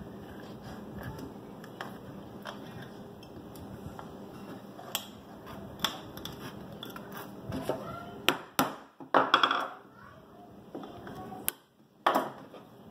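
Wooden beehive frame parts being handled and fitted together on a wooden tabletop: scattered knocks and clicks of wood on wood, more frequent in the second half.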